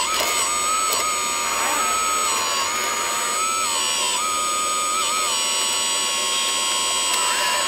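Small electric motors of 1/14-scale RC construction models whining steadily, the pitch dropping and rising in steps every second or so as the load changes.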